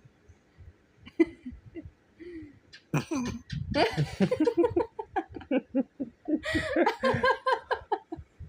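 High-pitched laughter in quick, rhythmic 'ha-ha' bursts, starting about three seconds in and running for about five seconds.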